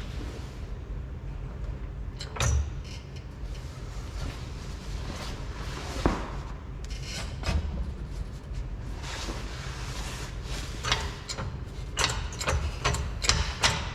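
Scattered metal clanks and knocks of suspension parts and hand tools being handled while a lift block is fitted on a truck's rear leaf spring, a cluster of them near the end, over a steady low hum.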